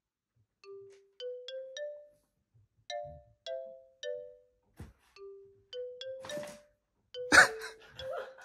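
Light background music: a simple bell-like melody of single notes that each ring and fade, with short pauses between phrases. A brief noisy burst about seven seconds in is the loudest sound.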